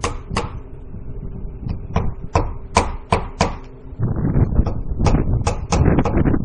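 Hammer driving nails into vinyl siding: sharp knocks in short runs of about three a second, with a low rumble joining about four seconds in.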